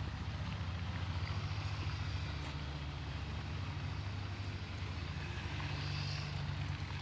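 A steady low motor drone with a faint hiss above it.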